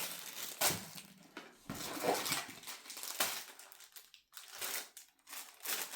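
Gift packaging crinkling and rustling in irregular bursts as items are handled and unwrapped.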